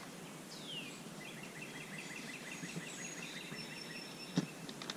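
A bird singing over steady background noise: a falling whistled note, then a rapid trill of short repeated notes, about eight a second. A single sharp knock comes about four seconds in.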